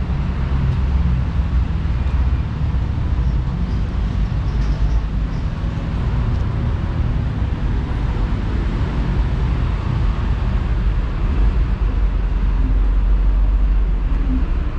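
City street traffic: motor vehicles running close by, a steady low rumble that swells a little near the end.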